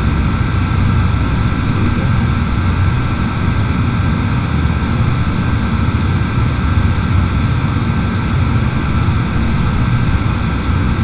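A steady, loud mechanical hum and hiss with a low rumble, overlaid by a few constant high whining tones, unchanging throughout.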